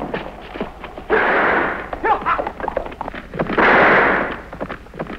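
Two loud gunshots about two and a half seconds apart, over the rapid hoofbeats of galloping horses.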